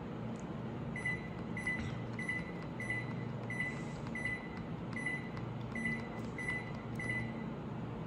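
Hitachi split air conditioner beeping as it takes each signal from its remote while the off-timer button is held down and the hours step up: short, even, high beeps about one and a half a second, starting about a second in, over a steady low hum.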